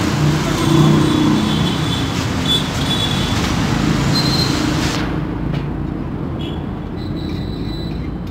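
Steady, loud background hiss and rumble at a street dosa stall, traffic-like, with faint murmuring underneath; the high hiss drops away suddenly about five seconds in.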